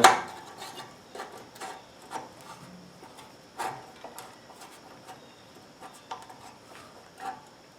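Light scrapes and a few soft knocks as the engine cover is worked in under the fan shroud and muffler bracket of an 18 hp Briggs and Stratton Vanguard engine. The clearest knocks come about three and a half seconds in and again near the end.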